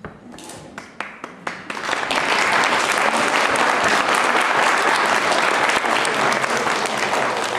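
Audience applauding: a few scattered claps at first, swelling into full, steady applause about two seconds in and easing slightly near the end.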